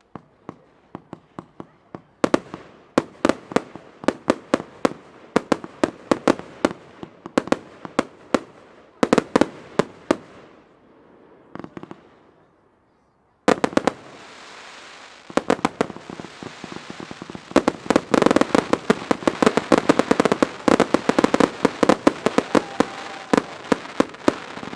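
Fireworks display: shells bursting in a quick series of sharp bangs, stopping briefly about twelve seconds in, then a dense volley of reports over a steady hiss that builds toward the end.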